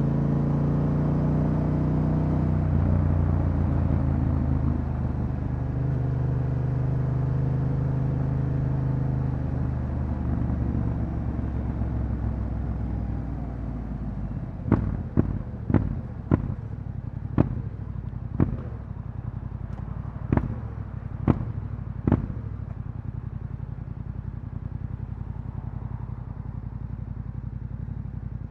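Yamaha Ténéré 700's parallel-twin engine through an Akrapovič exhaust, heard from the rider's seat: it runs steadily for about the first ten seconds, then eases off and settles to a low, quieter idle. Around the middle comes a run of about ten sharp pops over some eight seconds.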